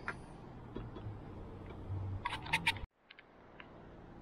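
Light clicks and taps of small parts and hand tools being handled on a car roof during roof-rail installation, with a quick cluster of them about two and a half seconds in, after which the sound cuts off suddenly.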